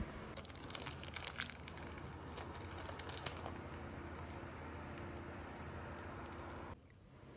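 Thin plastic wrapper of a mochi crinkling as it is handled and opened, a quick flurry of crinkles in the first half, then a steady low hum.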